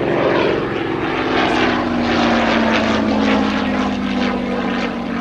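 Hawker Fury biplane's supercharged Rolls-Royce Kestrel V-12 engine and propeller in flight, a steady drone whose pitch sinks slightly as it goes.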